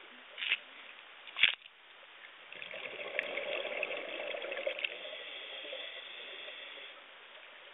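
Scuba diver's exhaled bubbles gurgling out of the regulator underwater for about four seconds, after two sharp clicks near the start.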